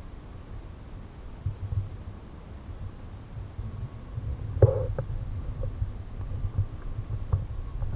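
Steady low rumbling noise on the camera microphone, with a sharp knock about four and a half seconds in.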